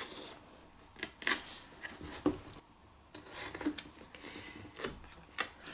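A product box and its packaging being handled and opened by hand: scattered taps, scrapes and short rustles of cardboard and plastic at irregular intervals.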